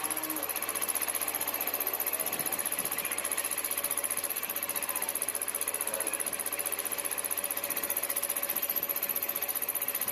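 A metalworking machine running steadily with a fast, even rhythmic chatter and a high whine.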